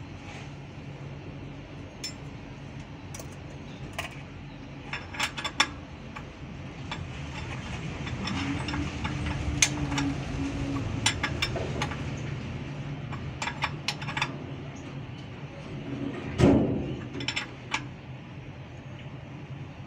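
A steel spanner clinking against the bolts and release-lever adjusters of a Hino 500 truck's clutch pressure plate as they are worked by hand: scattered short metallic clicks with a louder knock about three-quarters of the way through. Under it is a steady low hum that grows louder in the middle.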